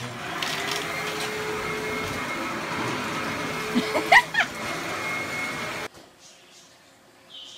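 Vacuum cleaner running steadily with a high motor whine. About four seconds in, a short pitched cry rises and falls over it. The vacuum noise cuts off suddenly near the end.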